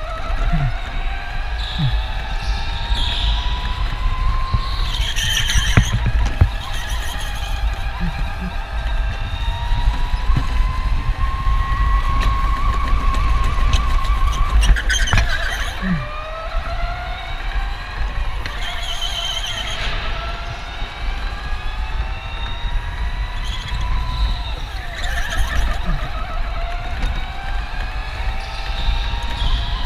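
Electric go-kart motor whining, its pitch climbing for several seconds and then dropping sharply again and again as the kart speeds up on straights and slows into corners, over a steady low rumble from the running kart.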